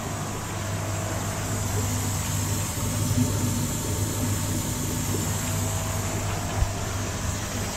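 Steady hum and hiss of koi pond filter air pumps running while an upflow bead filter goes through a timed full rinse.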